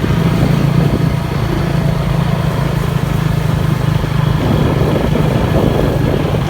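A vehicle engine running steadily under way, a constant low hum with road and wind noise.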